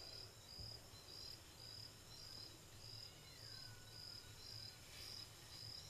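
Near silence, with a cricket chirping faintly and steadily at about two chirps a second over a low hum, and a faint falling whistle about three seconds in.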